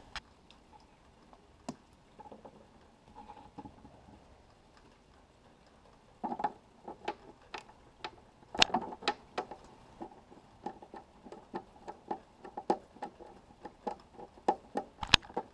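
Hand screwdriver driving screws to fasten a backup-camera mounting bracket to a motorhome's rear wall: a few faint clicks, then from about six seconds in a run of irregular clicks and taps, with one sharper click near the end.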